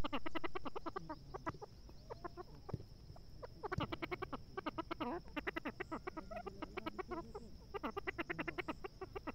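Grey francolin (teetar) calling: several runs of quick, short clucking notes, about ten a second.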